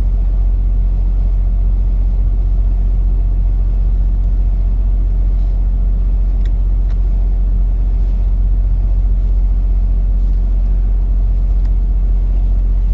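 A steady low rumble with a constant hum, unchanging throughout, with a couple of faint clicks about halfway through.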